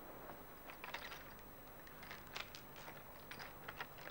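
Near silence with faint, scattered short clicks and rustles over a low hiss.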